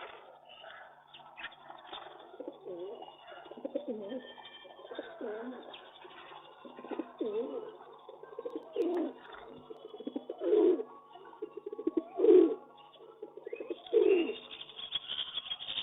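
Pigeons cooing: a run of low, wavering coos, growing louder in the second half, where the strongest calls come about every one and a half to two seconds.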